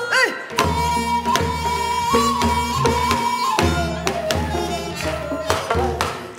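Gyeonggi folk song performed with Korean traditional accompaniment: a sustained, wavering melody line over regular drum strokes that keep a rhythmic cycle, with the singer's voice.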